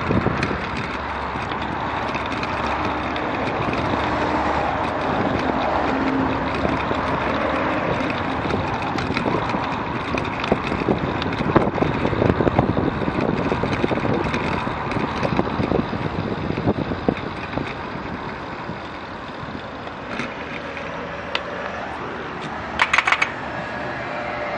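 Steady noise of road traffic passing alongside a bicycle ridden on a paved path, with wind on the microphone and many small rattles and clicks from the bike. About 23 seconds in, a quick run of four short beeps.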